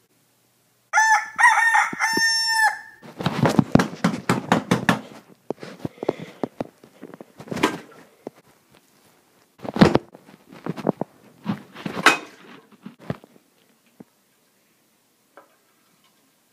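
A rooster crows once, a cock-a-doodle-doo of about four held notes, about a second in. Then a toilet flushes: water rushing and gurgling in irregular bursts that fade out over the next ten seconds.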